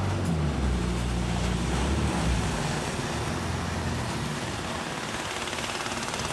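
Speedboat with an inboard Yanmar 4T112 engine running at speed, its steady low engine hum mixed with the rush of spray and wake off the planing hull. The engine tone is clearest in the first couple of seconds, then sinks under the water noise.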